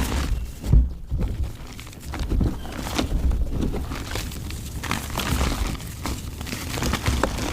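Chunks of dry mud crumbling and crunching as they are crushed, a dense run of irregular crackles with a heavier thump just under a second in.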